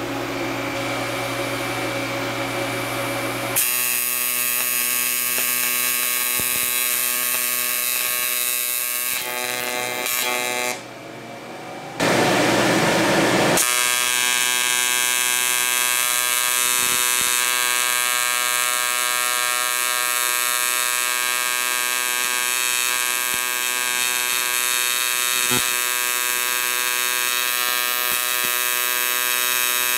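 AC TIG welding arc on thick aluminium, from a PrimeWeld 325: a steady electric buzz with many even tones. It starts about three and a half seconds in, dips briefly around eleven seconds, then runs steadily on.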